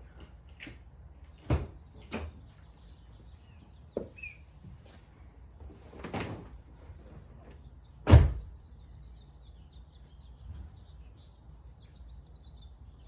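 A few scattered knocks and thumps, the loudest about eight seconds in, with birds chirping faintly throughout.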